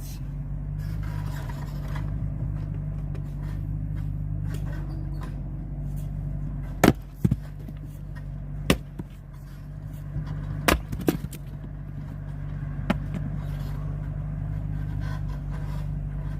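An engine runs steadily throughout. About halfway through, several sharp wooden knocks sound one after another over about six seconds, as firewood is split and the pieces fall.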